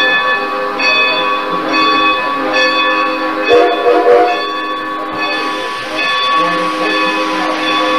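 Steam locomotive bell ringing steadily, struck about once a second, with a hiss of steam coming in about five seconds in.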